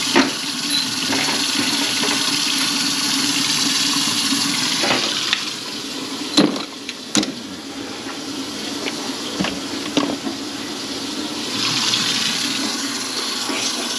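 Water running into a kitchen sink and its drain, with a steady hum through the first few seconds and several sharp knocks around the middle.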